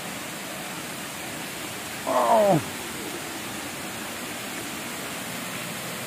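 Steady rush of water from a waterfall and its stream. About two seconds in, one short loud call cuts across it, its pitch sliding steeply down.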